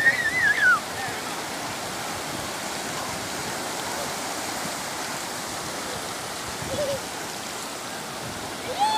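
Sea surf breaking and washing up a sandy beach, a steady rushing. A high voice calls out briefly in the first second, and again just before the end.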